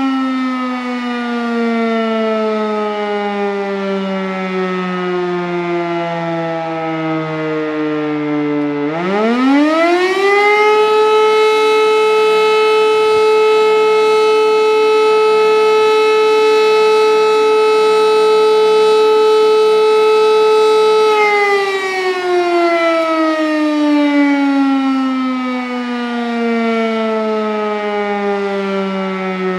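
Civil-defence siren sounding in a test. Its tone is falling away at first, then about nine seconds in it winds quickly back up to a steady, high tone. It holds that tone for about eleven seconds, then winds down again, falling slowly in pitch through the rest.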